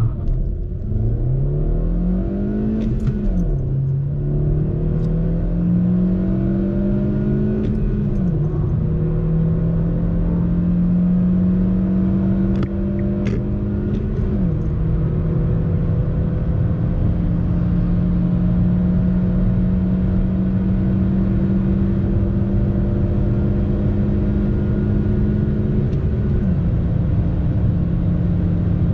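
A 2013 Kia cee'd JD's 1.4 CVVT four-cylinder petrol engine at full-throttle acceleration, heard inside the cabin. Its note climbs steadily through the gears and drops at each of four upshifts of the six-speed manual, about three, eight, fourteen and twenty-six seconds in, the later gears rising more slowly.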